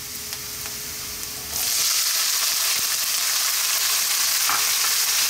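Garlic and ginger frying quietly in hot oil in a wok, then a sudden loud sizzle about a second and a half in as drained, still-wet frozen mixed vegetables are ladled into the oil; the sizzle then carries on steady as the water cooks off.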